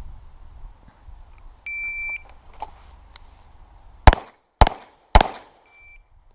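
Shot timer's start beep, then three pistol shots fired about half a second apart, then a short second beep from the timer marking the par time.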